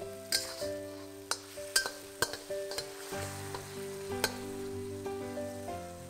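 Metal spatula scraping and clinking against a wok while shrimps and tomatoes stir-fry in oil with a light sizzle: about six sharp scrapes, the loudest near the middle. Background music with held notes plays underneath.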